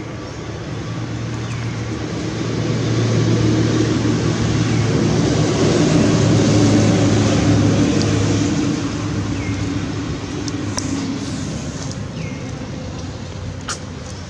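A motor vehicle passing by: a steady engine hum that swells over a few seconds and then fades away. A few faint short chirps and clicks sound over it.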